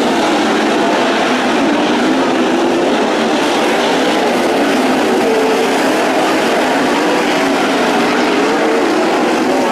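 A pack of 360 sprint car V8 engines running at racing speed, several engine notes overlapping and wavering up and down in pitch as the cars go around the track.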